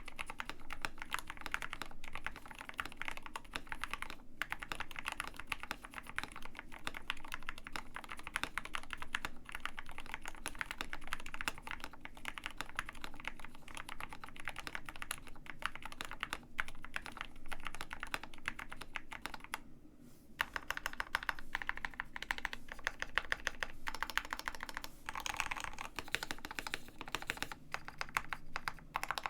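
Continuous typing on a KBD67 Lite R2 65% custom mechanical keyboard with Gateron Black Ink V2 linear switches, steady keystrokes with a short pause about two-thirds of the way through.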